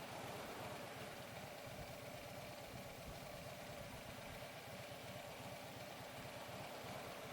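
Harley-Davidson V-twin motorcycle engine idling steadily at a stop.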